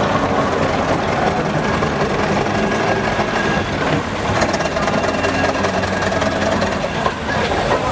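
Steam traction engines running, with a continuous rapid rhythmic mechanical clatter.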